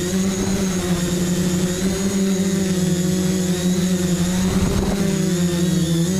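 FPV quadcopter's electric motors and propellers humming steadily as picked up by its onboard camera, the pitch wavering slightly with throttle and dipping briefly near the end.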